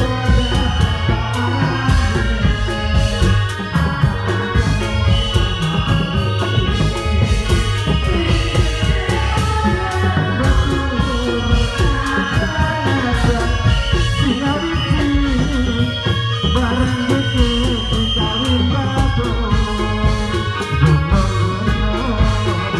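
Loud live folk-band music accompanying a reog masked dance, with steady low drumming and long held melody lines throughout.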